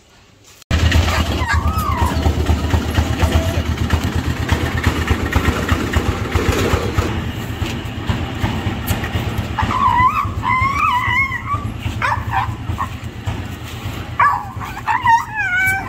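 A dog whining in high, wavering cries, in short runs from about ten seconds in and again near the end, over a loud, steady low rumble that starts suddenly about a second in.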